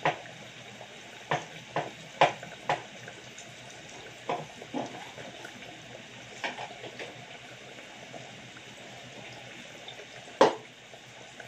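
Sauce sizzling and bubbling in a saucepan on the stove, a steady hiss broken by several sharp pops. The loudest pop comes about ten seconds in.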